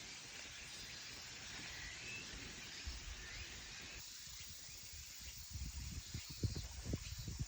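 Outdoor summer countryside ambience: a steady hiss of water or insects with a few faint bird chirps. About two-thirds of the way in, irregular low rumbling gusts of wind on the microphone set in.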